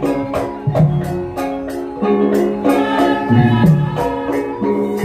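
Javanese gamelan music for a lengger dance: ringing struck notes over a steady beat with jingling percussion.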